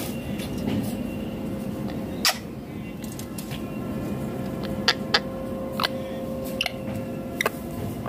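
Rose-ringed parakeet moving and feeding in a wire cage: a handful of short, sharp clicks scattered over several seconds, over a steady background hum.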